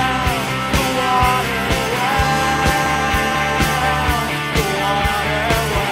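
Indie rock band playing a recorded song: a steady drum beat under a held melody line that slides between notes.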